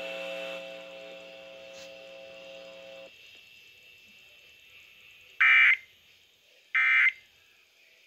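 Emergency Alert System end-of-message data tones from a Midland radio's speaker tuned to an FM station: two short harsh electronic bursts about a second and a half apart, marking the end of the national test alert. A low steady hum fades out about three seconds in, before the bursts.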